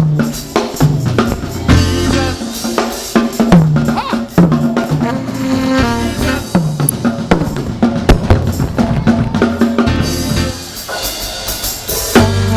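Live gospel worship band playing: a drum kit with kick, snare and rimshots over sliding bass notes and sustained keyboard chords, with a single sung or shouted 'Jesus' about two seconds in.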